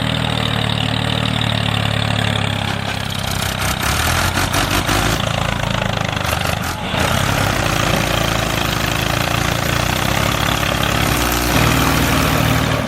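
Truck engine running with a low, steady drone and a rough hiss over it; a second, higher hum joins about eight seconds in.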